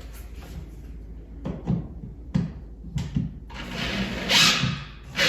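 Clicks and knocks of hard hardware being handled and fitted into a TV wall mount, several sharp taps in the middle, then a short, louder rasping burst about four seconds in.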